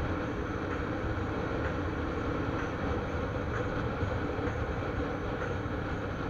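Motorcycle engine running at a steady cruise, with wind rushing over the camera microphone.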